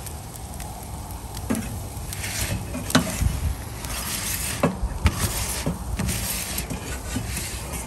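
Gas burner of an Ooni Karu 12 pizza oven running with a steady low rumble, while a metal turning peel scrapes across the oven's baking stone to turn the pizza, with several sharp clicks as it knocks against the stone and oven mouth.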